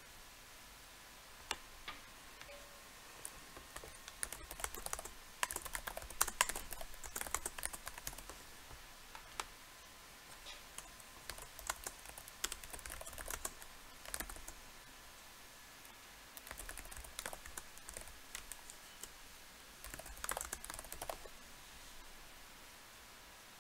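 Typing on a computer keyboard in bursts of quick keystrokes with pauses between them, the densest flurry about six to eight seconds in.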